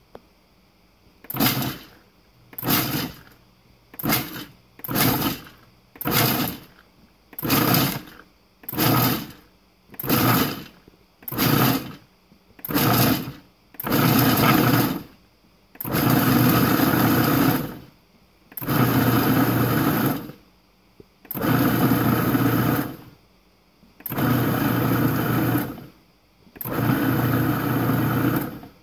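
Breville Sous Chef BFP800XL food processor motor pulsed in about ten short bursts, then run in longer bursts of about two seconds with brief pauses between them. Its blade is chopping almonds and pumpkin seeds and grinding them toward a nut butter.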